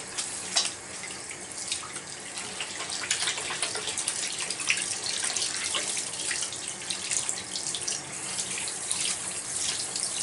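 Bathroom sink faucet running while hands are washed under the stream, the water splashing into the basin. The tap is shut off right at the end.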